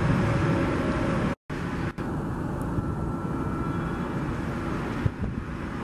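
Steady noise of aircraft jet engines and outdoor wind. It cuts out completely for a moment about a second and a half in, then returns duller as the idling engines of a taxiing Southwest Boeing 737.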